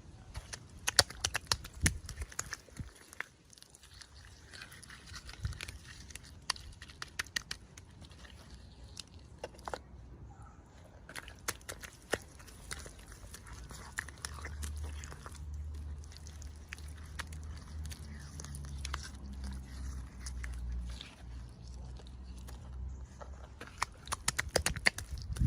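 Close-up handling of toy packaging and small plastic pieces: irregular crisp clicks, taps and crinkles. A low rumble runs through the middle stretch.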